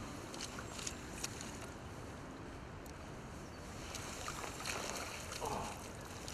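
Steady hiss of wind and water, with faint splashing of a hooked brown trout as it is drawn into a landing net about four seconds in.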